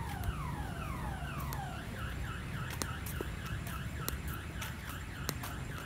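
Electronic siren-like sound effect of an odong-odong children's ride: a falling whoop repeated about twice a second, the whoops turning shorter after about two seconds, with scattered sharp ticks.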